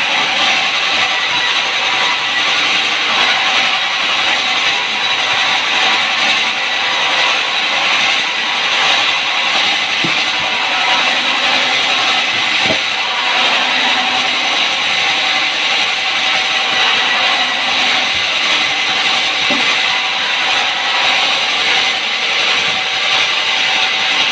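Sawmill saw cutting steadily through a log, a loud continuous high rasping hiss, with a few faint knocks partway through.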